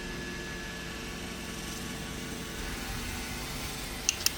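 A steady mechanical hum with a thin high tone running through it. Just before the end, a quick series of sharp clicks begins, about six a second.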